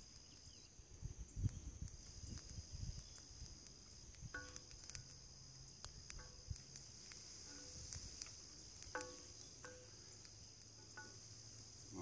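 Faint, steady high-pitched insect chorus droning throughout, with a few short, faint animal calls and some low thuds in the first few seconds.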